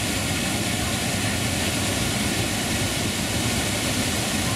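Waterfalls pouring into a bathing pool: a steady, unbroken rush of falling water.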